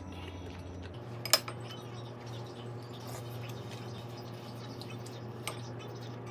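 Cutlery clinking against a dish: one sharp clink about a second in and a lighter one near the end, with faint small ticks between, over a steady low hum.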